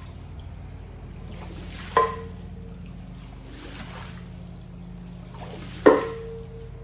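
Long-handled floor squeegee pushed through a soaked area rug, forcing water out of the pile: each stroke is a swish of rushing water that ends in a sharp clack with a brief ring, twice, about two seconds in and again near the end. A steady low hum runs underneath.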